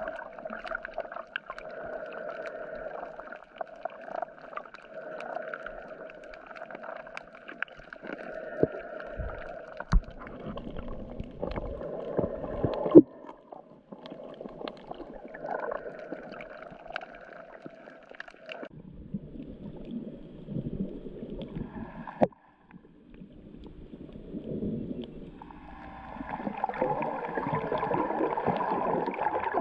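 Underwater sound picked up by a camera in its housing: a muffled, steady drone with gurgling water, broken by a few knocks. The drone drops away about two-thirds through, and the noise grows louder and denser near the end.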